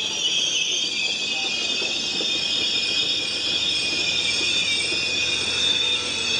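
Amtrak passenger train's stainless-steel coaches rolling past close by at speed: steady wheel-and-rail noise with a continuous high-pitched squeal from the wheels.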